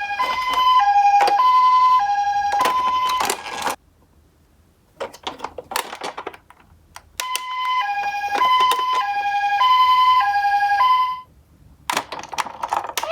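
Japanese ambulance siren in its two-tone 'pee-po' pattern, alternating a higher and a lower note about every two-thirds of a second. It sounds for about four seconds, stops, then sounds again for about four seconds. Short clicks and rattles fall in the pauses between.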